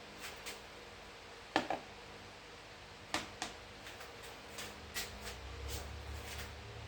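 Small metal hardware being handled: washers, nuts and bolts for a seat belt mount clicking and tapping together in about a dozen irregular knocks, the loudest about a second and a half in. A low hum comes up near the end.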